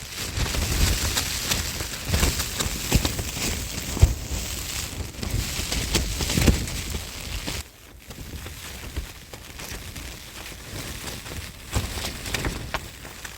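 Rain and gusting wind, with many drops ticking sharply; it drops noticeably quieter about eight seconds in.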